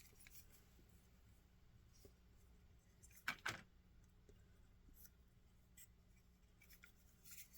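Near silence with two small clicks a little over three seconds in, a quarter second apart, from HO-scale model train cars being handled.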